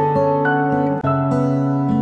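Instrumental background music: a melody of held notes, changing about every half second, over a steady low note.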